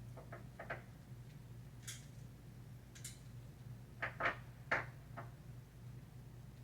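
A few light clicks and knocks, a small cluster near the start and the loudest four about four to five seconds in, over a steady low electrical hum.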